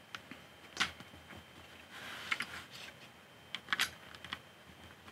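Plastic Lego pieces clicking as they are pressed by hand onto a larger Lego assembly: a single sharp click about a second in, then two short clusters of clicks around halfway and near the end, with faint handling rustle between.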